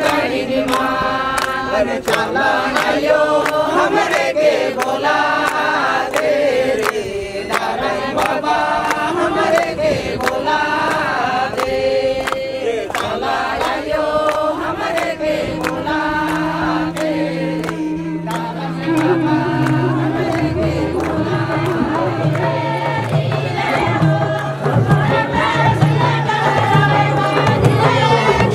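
A group of men and women singing a devotional song in chorus, with regular hand claps keeping the beat. A low steady note sounds underneath from about halfway through.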